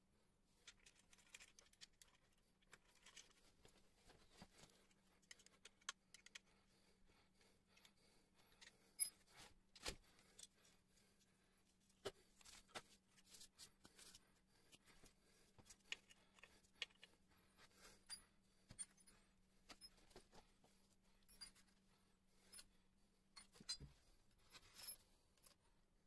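Faint scattered clicks and small rattles of screws and a plastic cover being picked up and handled by hand, over a faint steady hum.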